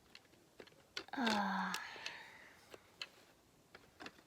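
A short, wordless groan from a person's voice about a second in, falling in pitch. Scattered light clicks come before and after it.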